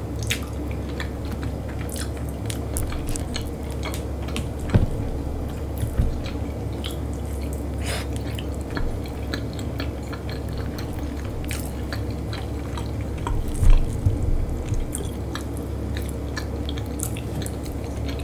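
Close-miked chewing and mouth sounds of a person eating, with scattered small clicks and a few louder knocks over a steady low hum.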